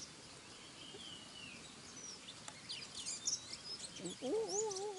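Small wild birds chirping with short, high calls, and one longer falling whistle about a second in. Near the end a wavering, lower-pitched call begins.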